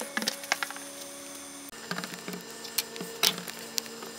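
Large foam die being rolled and picked up on a tabletop: irregular light taps and knocks as it lands and is handled, over a faint steady hum.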